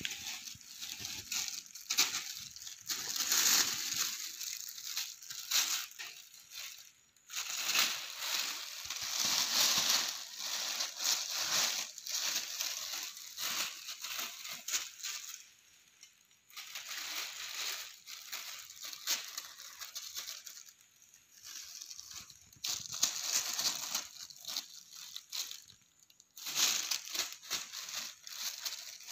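Thin plastic bag crinkling and rustling in irregular bursts as two kittens climb, paw and tumble about in it, with brief lulls about seven, sixteen and twenty-six seconds in.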